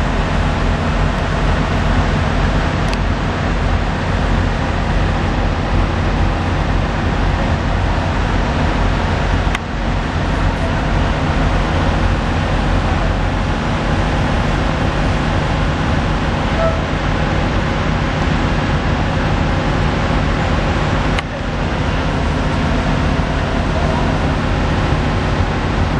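Steady heavy-vehicle engine and road noise running without a break, with two brief drops in level partway through.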